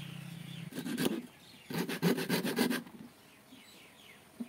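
A small knife scraping and shaving a bamboo stick in rapid strokes: a short bout about a second in, then a longer, louder run of quick even strokes. A low hum stops about a second in, and birds chirp faintly.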